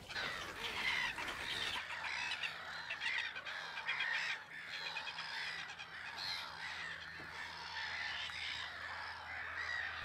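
Nesting colony of marsh birds: many birds calling over one another in short, overlapping calls, a busy chorus with no one voice standing out.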